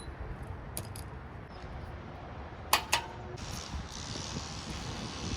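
Metal parts clinking twice in quick succession, sharp and briefly ringing, about halfway through, with a few lighter ticks before them, over a steady low rumble; a faint hiss comes in shortly after the clinks.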